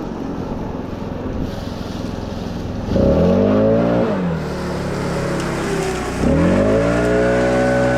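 Farm machine's diesel engine running, throttled up about three seconds in and dropped back a second later, then revved up again just after six seconds and held at high speed, with a thin high whine joining near the end.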